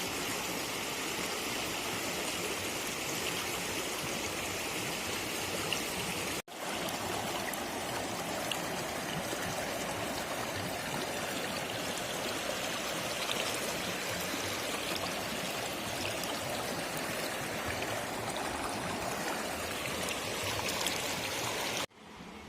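Narmada River water flowing: a steady rush of moving water. It drops out for an instant about six seconds in and cuts off abruptly just before the end.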